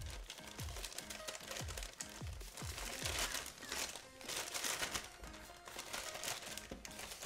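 Background music with a steady beat of deep, falling kick drums and held notes, with packaging crinkling and rustling under it for a couple of seconds mid-way.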